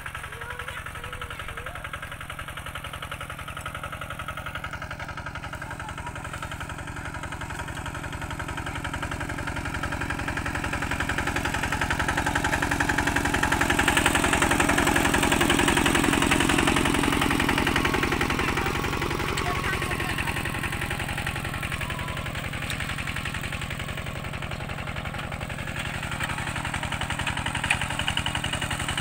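Tractor engine running steadily, growing louder toward the middle and easing off again near the end.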